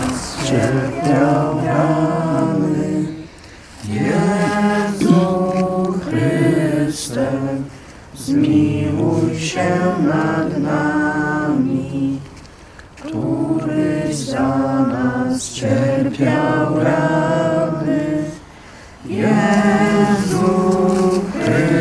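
A group of people singing a church hymn together without accompaniment, in phrases of a few seconds with short breaths between them.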